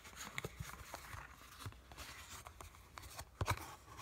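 Cardboard box and plastic packaging being handled by hand: light rustling and scraping with small clicks, and a couple of louder knocks about three and a half seconds in.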